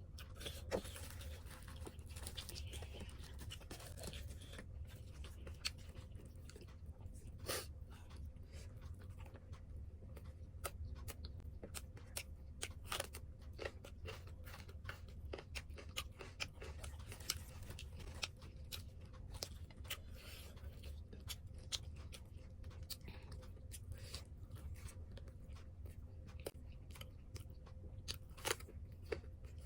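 Close-up eating sounds: chewing with many sharp, irregular mouth clicks and smacks, over a low steady hum.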